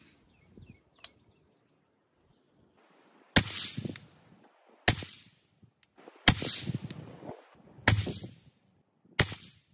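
Five shots from an AR-15-style rifle firing Black Hills 77-grain Mk 262 5.56 mm ammunition, spaced about one and a half seconds apart, the first about three seconds in, each trailing off in a brief echo.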